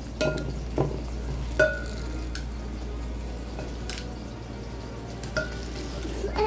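A knife chopping down through a block of cheddar cheese onto a plastic cutting mat: about seven short, sharp taps at uneven intervals, a few with a brief ring, over a steady low hum.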